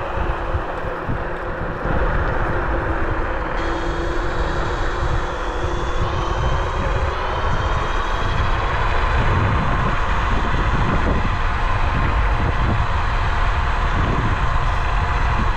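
Bluetran Lightning 72V electric scooter under way: a steady electric motor whine with a slowly shifting pitch over heavy wind rumble on the microphone.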